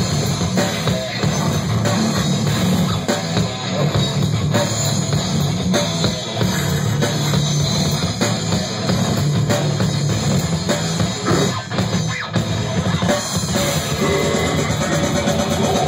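Live metal band playing loud: drum kit with bass drum, electric guitar and bass guitar going without a break.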